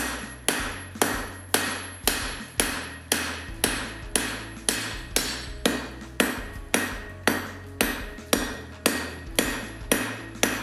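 Hand hammer striking red-hot steel on an anvil in a steady rhythm of about two blows a second, each blow ringing briefly. This is forging: drawing out the steel stock for a knife's handle.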